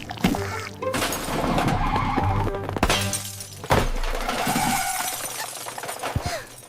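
Background music mixed with loud crashing and shattering sound effects, with several sudden crashes.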